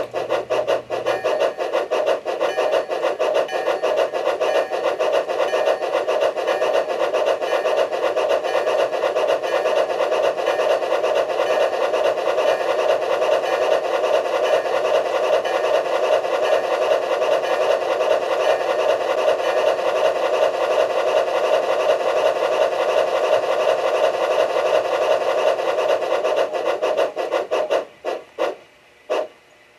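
Bachmann 1:20.3 two-truck Climax model locomotive running on rollers under DC power: its Soundtraxx Tsunami sound gives a steady, very rapid steam chuff over the whir of the geared drive. Near the end it breaks into three separate puffs and stops.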